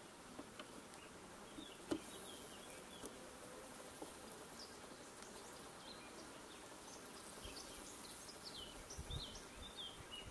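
Faint steady hum of honeybees from an open hive, with a few sharp clicks of a metal hive tool levering wooden frames apart, the loudest a little under two seconds in. Birds chirp in the background, more often in the second half.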